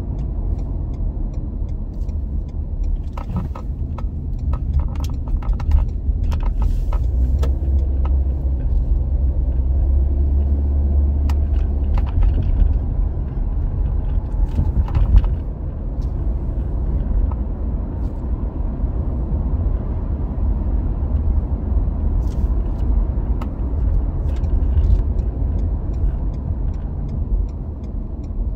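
Steady low rumble of road and engine noise inside a moving car's cabin, with scattered light clicks and rattles now and then.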